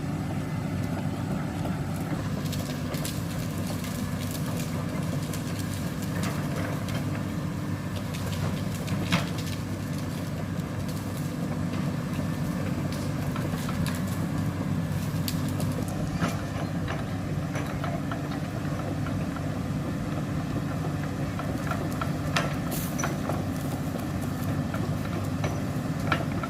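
Diesel excavator engine running steadily, with scattered knocks and cracks from the work as it clears the forest, one sharper knock about nine seconds in.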